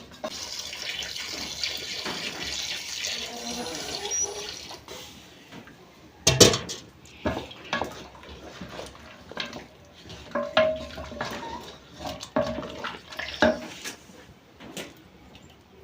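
Liquid hissing and splashing in a cooking pot for the first few seconds, then a metal utensil knocking and scraping against the pot several times, the loudest knock about six seconds in.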